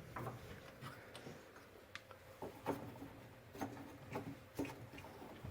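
Scattered light knocks, ticks and rubbing of wooden parts as a workbench fence is handled and fastened down with hardwood nut fasteners on threaded screws.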